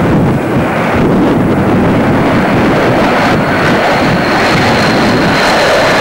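Jet aircraft flying overhead, a large jet with two fighter jets in formation, making a loud steady rushing jet noise. A high whine joins about halfway through and slowly falls in pitch, with wind buffeting the microphone throughout.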